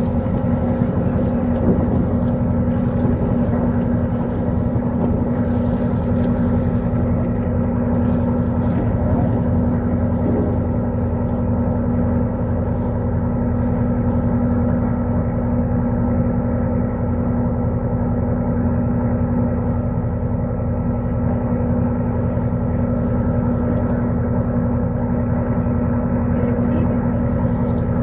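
Boat engine running steadily: an unchanging drone with a strong low hum held at one pitch.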